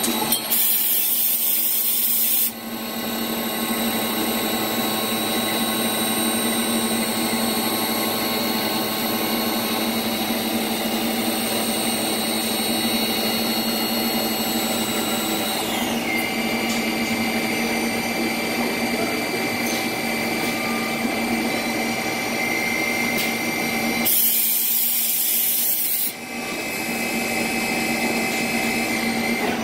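Nomura NN-16SB6 Swiss-type CNC lathe running a machining cycle: a steady hum under several high spindle whines, one of which drops in pitch about halfway through as the speed changes, with coolant pouring over the tooling. Two loud bursts of hiss, each about two seconds long, come just after the start and about 24 seconds in.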